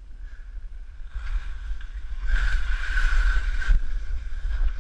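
Skis sliding and scraping over snow, a hiss that swells about a second in and is loudest for over a second around the middle, with a constant low rumble of wind on the microphone.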